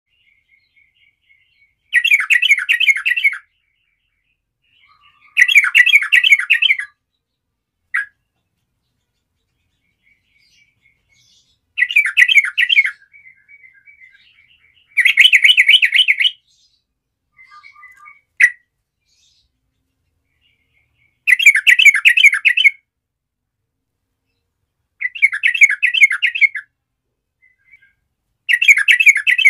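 Yellow-vented bulbul singing: seven loud phrases of rapid warbled notes, each about a second and a half long and a few seconds apart, with a few single short chirps and softer chatter in between.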